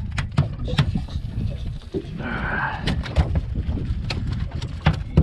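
Wind buffeting the microphone, with scattered sharp knocks and taps throughout.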